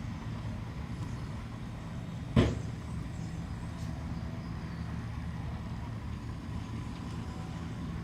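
Heavy earthmoving machinery, a bulldozer or dump truck, with its diesel engine running steadily at a low drone. One sharp bang rings out about two and a half seconds in.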